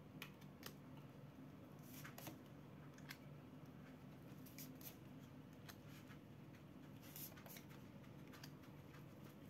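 Near silence: room tone with a low steady hum and a dozen or so faint, scattered small clicks.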